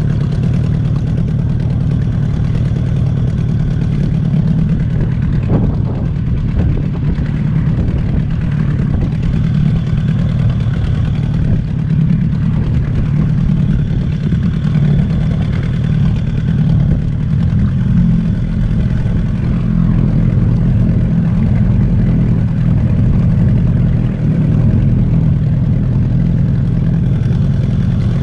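Boat's outboard motor running steadily at low trolling speed, a constant low drone with no change in pace.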